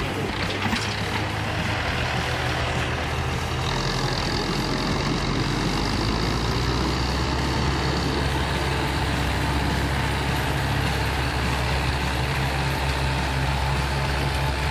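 Heavy timber truck's diesel engine running steadily with a constant low drone.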